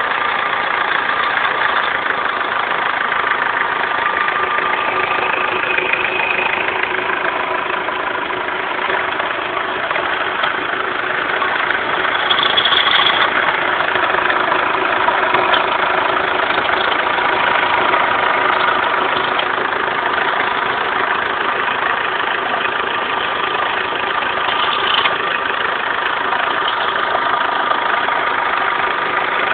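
Renault Laguna 1.9 dCi four-cylinder turbodiesel idling steadily, with steady tones running over the engine note; this is the weird engine sound the owner is recording.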